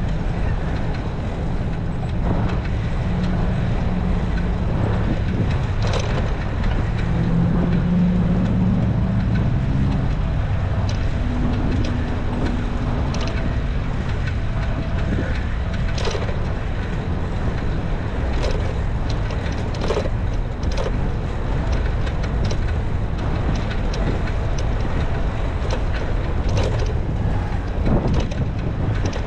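Wind buffeting the microphone and tyre rumble from a bicycle ridden along a paved path, with scattered short clicks and rattles. A low hum swells and fades in the middle.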